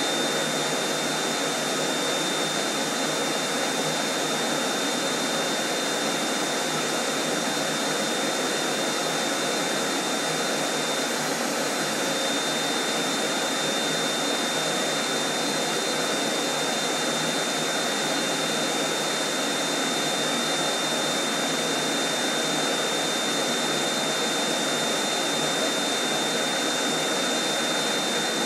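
Vacuum cleaner motor running steadily at full power: a constant rush of air with a thin high whine and no change in pitch or level.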